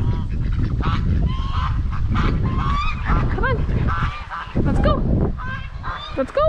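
Geese honking, many short calls one after another and overlapping, with wind rumbling on the microphone.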